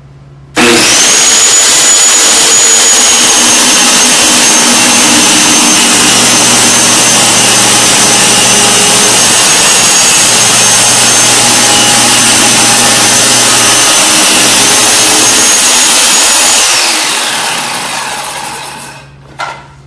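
Ryobi corded circular saw starting up and cutting a long straight line through a plywood sheet: a steady high whine over the blade's cutting noise. About 17 seconds in the trigger is released and the blade winds down, falling in pitch over a couple of seconds, followed by a few knocks near the end.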